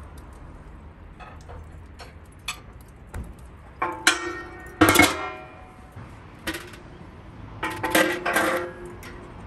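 Metal clanks and clinks from a Pit Barrel Cooker's steel drum, lid and hanging rods as ribs are hung inside, each knock ringing briefly. Light ticks at first, then two clusters of loud clangs, about four seconds in and about eight seconds in.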